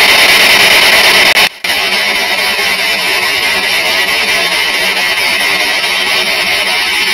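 P-SB7 spirit box's radio-sweep static played back from a recording: a loud, steady hiss. It cuts out briefly about a second and a half in, then resumes slowed to half speed.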